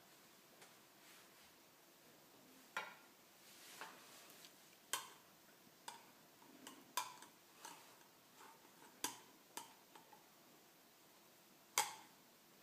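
A knife clinking and scraping against a jelly jar as jelly is dug out, in about ten sharp, irregular clicks with a loud one near the end.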